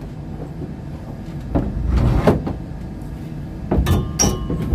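Knocks, bumps and scraping against wooden boat planks as someone clambers through a cramped hold with a handheld phone, over a steady low rumble. The knocks come in two clusters, around the middle and near the end.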